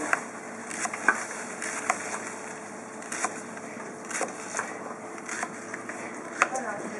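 Kitchen knife cutting an onion on a plastic cutting board, with sharp irregular taps of the blade on the board about once a second.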